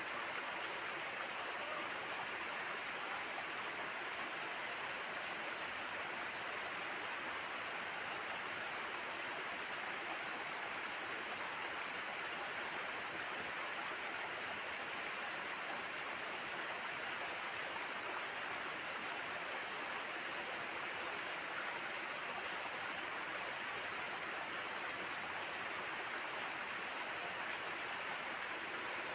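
Steady rushing noise that holds completely even, like flowing water, with no separate knocks or voices standing out.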